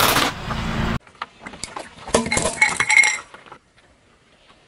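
A car tyre rolling over cheese balls on asphalt, crushing them with a dense crunching that cuts off about a second in. Then a run of sharp clinks and cracks with a brief ringing, brittle pieces breaking or being crushed, for about two seconds.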